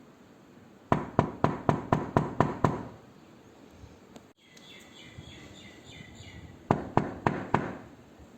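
Knuckles rapping on a wooden door: a quick run of about eight knocks, then after a pause four more.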